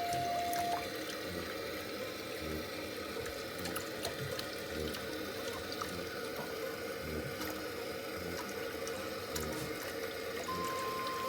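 Water running steadily from a tap or shower during a kitten's bath, with a few soft knocks. Background music comes in briefly at the start and again near the end.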